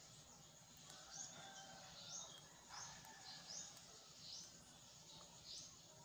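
Faint bird chirping over near-silent room tone: short high chirps repeated about once a second.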